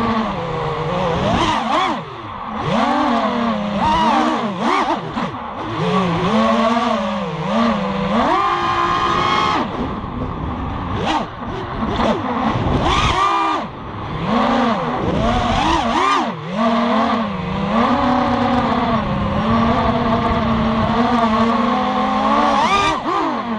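Onboard sound of a 250-class FPV racing quadcopter: four Lumenier 2204 2300 kV brushless motors spinning DAL 5045 three-blade props, their whine swooping up and down in pitch as the throttle changes. About eight seconds in it is held high for a second or so at full throttle.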